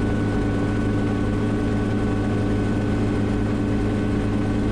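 Schweizer 300CB helicopter in flight: the steady drone of its four-cylinder piston engine and rotors, heard inside the cabin. It runs at constant pitch with a thin high whine over it.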